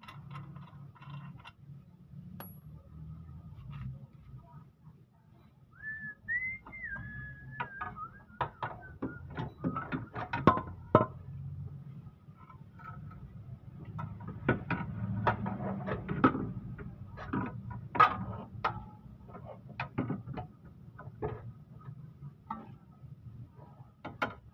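Hand tools working the bolts of a car's front suspension arm: irregular metal clicks and clinks, busiest in the second half, over a low steady hum. A short whistle about six seconds in.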